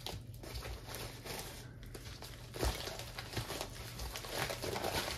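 Packaging crinkling and rustling as it is handled and opened, with a few sharper crackles from about halfway through.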